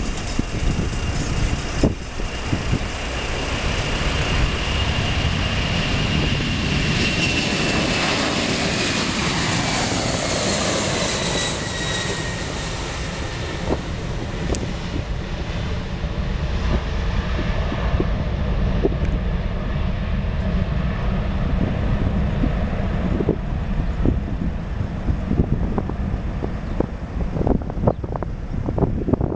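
Boeing 747-400 freighter's four jet engines at takeoff power as it lifts off and climbs past: loud, steady jet noise with a high whine that drops in pitch between about seven and twelve seconds in as the jet goes by, then a low rumble as it climbs away.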